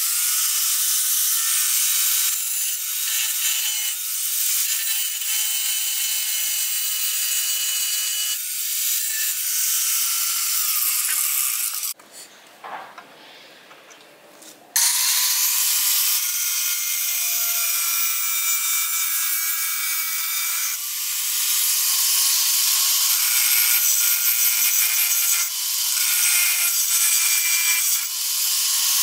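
Bauer angle grinder running with its disc against the steel of a car's radiator support, grinding off the tack welds: a loud, harsh high-pitched grinding whose pitch wavers as the disc bites. It stops for about three seconds near the middle, then starts again.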